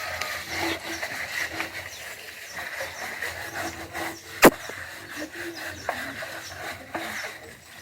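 A bunch of leaves scrubbed against the surface of a clay water pot, a soft rasping rub of repeated strokes. A single sharp knock cuts through about halfway in.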